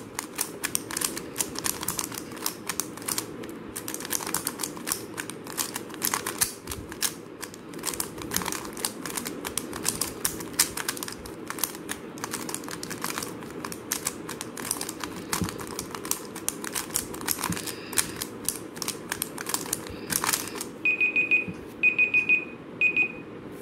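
Rapid, continuous clicking of a plastic 3x3 speed cube being turned fast through J-perm algorithms over and over. The turning stops about 20 seconds in, and a tablet countdown timer beeps in three short bursts as it runs out.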